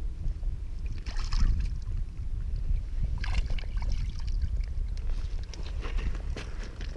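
Wind rumbling on the microphone, with a few short noisy sounds about a second in, about three seconds in and around six seconds in.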